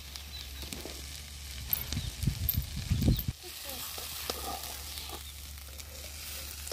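Potato strips sizzling in hot oil in a kadai, with clicks and scrapes of a long steel spatula stirring them. A run of low thumps comes around the middle.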